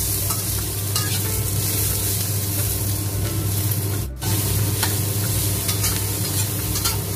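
Diced bell peppers and onion sizzling in hot oil in a wok while a metal spatula stirs and scrapes them, over a steady low hum. The sound drops out for an instant just after four seconds in.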